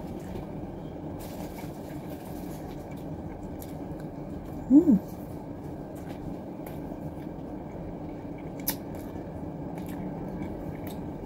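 A person chewing food, with faint wet mouth clicks over a steady room hum, and a short hummed 'mm' from her voice about five seconds in.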